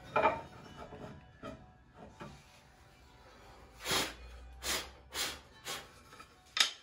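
Wooden boards and strips knocking and scraping against each other as they are handled: a clatter right at the start, then five short knocks and scrapes in the second half.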